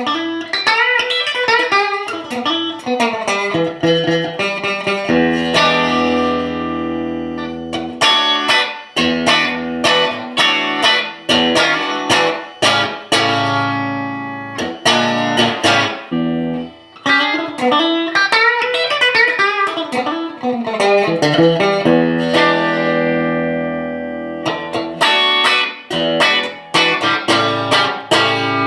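Electric guitar played through a BOSS Katana 50 Mk II combo amp: runs of quick picked notes, broken several times by chords left to ring out.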